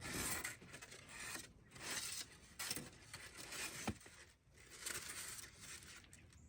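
Cardboard packaging being cut and torn open: a run of short scraping and tearing noises with a sharp click a little before the middle.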